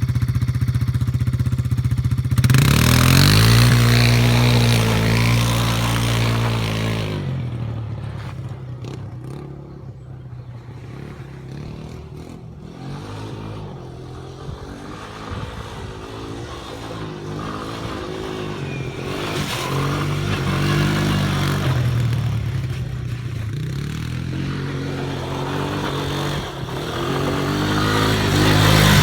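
Quad bike engine running and revving. Loud in the first few seconds, it fades as the bike moves away, then grows louder again as it comes back near the end.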